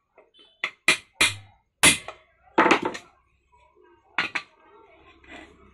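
Iron hammer striking the rim of a thin aluminium pressure-cooker lid held over a steel stake, sharp metallic blows with a short ring. It strikes several times over the first three seconds, then twice in quick succession just after four seconds. The blows are straightening the lid's bent-up lock lugs.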